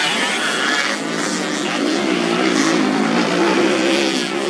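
Racing underbone motorcycle engines revving hard, the note rising and falling with the throttle as the bikes power through the dirt corners.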